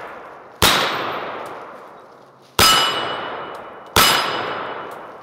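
Three shots from an M1 carbine in .30 Carbine, the first two about two seconds apart and the third about a second and a half later. Each shot is a sharp crack with a long fading tail. The last two carry a metallic ringing tone, steel targets being hit.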